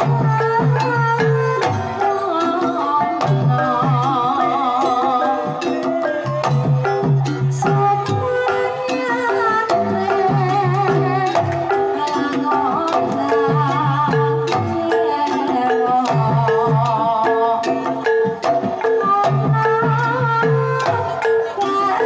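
Live Banyumasan gamelan playing a tayub gending: a sinden sings a wavering, ornamented melody over the struck notes of metallophones and kettle gongs, driven by a kendang hand drum in a repeating pattern.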